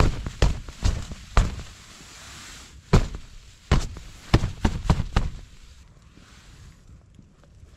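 A hand slapping the fabric wall of a Starus Optima Dome 2 tent from inside: about ten sharp thumps in the first five seconds, then quiet.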